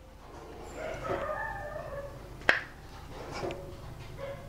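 A faint, drawn-out animal call lasting about a second, followed by a single sharp click about two and a half seconds in.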